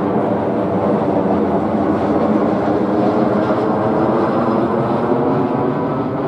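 Airbus A320-214 airliner passing low overhead on landing approach with its gear down, its twin CFM56-5B jet engines making a loud, steady drone with a buzzing hum in it that swells slightly a few seconds in.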